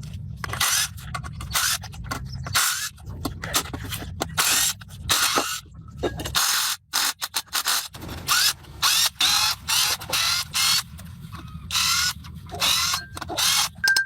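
Hand-tool work: a fast, irregular run of short scraping, ratchet-like mechanical strokes, over a steady low hum that drops out briefly around the middle.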